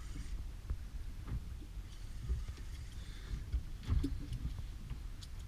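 Low, uneven rumble of wind buffeting the microphone over the open sea aboard a boat, with a few faint knocks and clicks.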